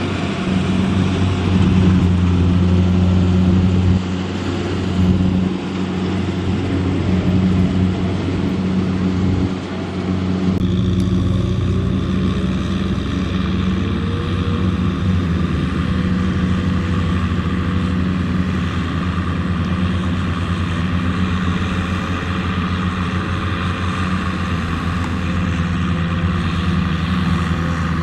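Kubota M6040SU tractor's four-cylinder diesel engine running steadily under load as it tows a loaded trailer through mud. The engine note shifts abruptly about ten seconds in, then carries on steady.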